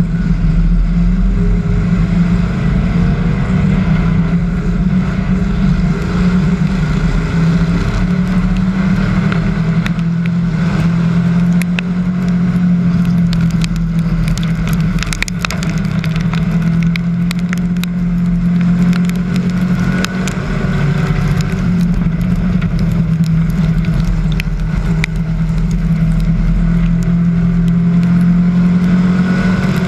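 Onboard sound of a hobby stock race car's engine running hard at racing speed, a loud steady drone with brief dips about twenty and twenty-five seconds in. Scattered sharp clicks and rattles come through in the middle.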